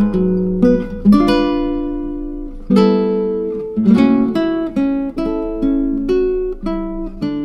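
Background music: a guitar plucking a slow melody of single notes and chords, each note struck and left to ring. A last chord is struck near the end and rings on.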